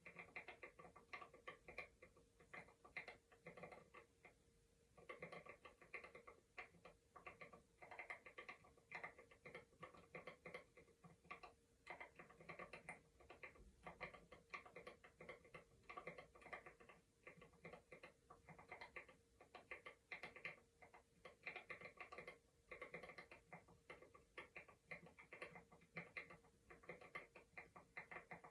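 Faint keyboard typing: rapid soft key clicks in bursts with short pauses. A faint steady hum runs underneath.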